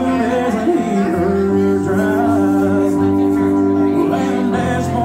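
Male voice singing over his own Yamaha MX88 electronic keyboard, which plays held chords that change every second or two.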